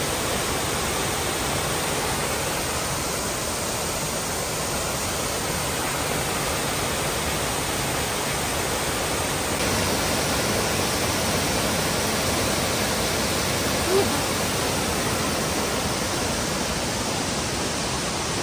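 Waterfall cascading over rock ledges: a steady rush of falling water that turns brighter and a little louder about ten seconds in.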